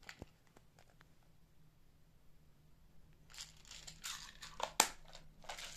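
Small clear plastic compartment box of beads and figurines being handled: a few faint clicks, then from about three seconds in a busier run of plastic rustling and clicking, with one sharp click near the end.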